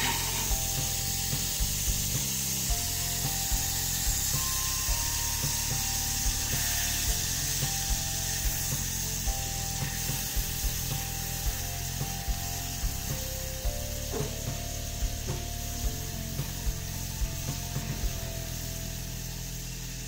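Background music with a steady beat of about two ticks a second and a simple stepping melody, over butter sizzling as it melts in a saucepan.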